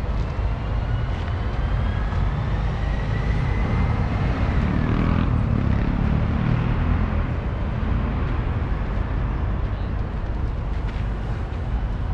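Steady low rumble of city traffic, with a faint high whine that rises over the first few seconds and falls away about four to five seconds in, like a vehicle passing.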